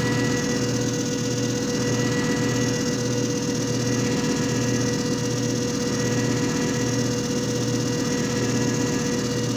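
JFJ Easy Pro disc repair machine running: a steady motor hum that pulses faintly about once a second.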